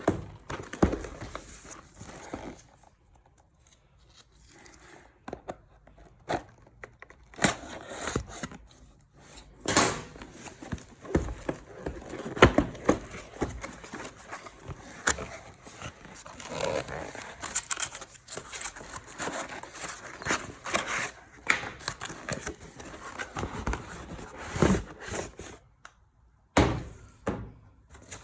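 Unboxing a Lite-Brite Classic toy: its box and packaging being handled, with irregular thunks and knocks amid crinkling and rustling.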